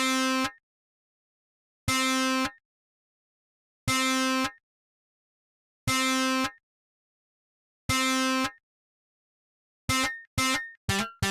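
Electronic music: a single buzzy synthesized tone sounding for about half a second every two seconds, with dead silence between, then near the end a fast stuttering run of short electronic notes.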